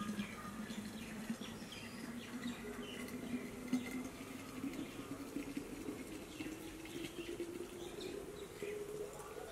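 Water pouring from a kettle into a vacuum flask in a steady stream, its pitch rising slowly as the flask fills.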